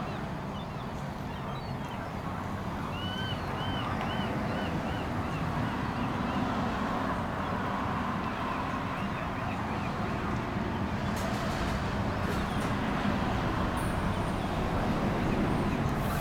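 A gull calling a quick run of short rising-and-falling notes, about three a second, starting about three seconds in, with a fainter run a few seconds later, over a steady low outdoor rumble.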